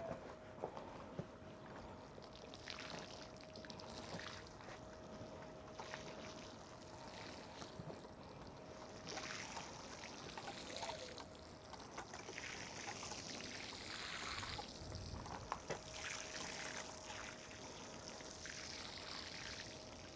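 Faint water spraying onto freshly sown garden soil as the seeds are watered in, coming and going in patches.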